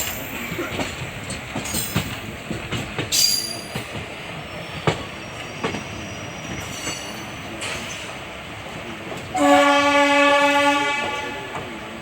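ICF passenger coaches rolling along the track with a steady rumble, scattered clicks of wheels over rail joints and a brief high wheel squeal about three seconds in. About nine and a half seconds in, the WAP-4 electric locomotive's horn sounds one steady blast of about a second and a half, the loudest sound.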